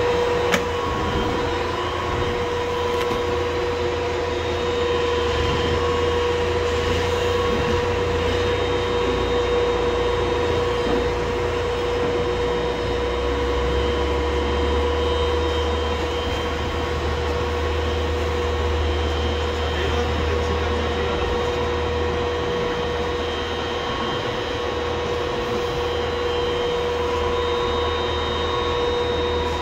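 KUHN vertical twin-auger feed mixer running with a hay bale in the tub: a steady mechanical whine over a low rumble that swells and eases as the augers work the bale. A short knock sounds just after the start.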